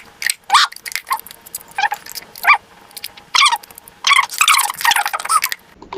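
A small dog barking and yapping in short, separate barks, then a quick flurry of barks about four seconds in.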